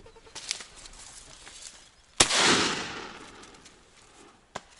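A single shot from a TOZ-34 over-and-under shotgun about two seconds in, sharp and loud, with a rolling echo that dies away over about a second. A short sharp click comes near the end.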